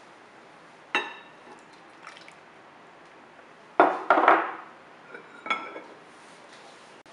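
Ceramic bowls clinking: a ringing clink about a second in, then hot water splashing briefly into a ceramic dish, then a few more clinks as the small bowl shifts in the water.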